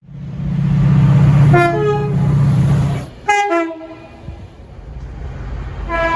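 A British train sounding its two-tone horn, two notes in quick succession, about a second and a half in, over the heavy rumble of the train. Just after three seconds a second two-note horn call sounds, then a quieter rumble, and another horn starts right at the end.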